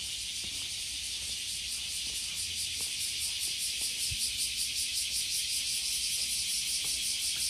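Cicadas shrilling in a dense, high-pitched chorus that starts to pulse in a quick, even rhythm a few seconds in, over a faint low rumble of the street.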